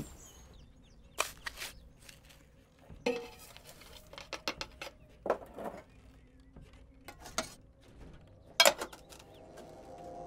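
Metal canisters and their lids clinking and knocking as they are handled: a series of scattered, irregular clanks, the loudest near the end.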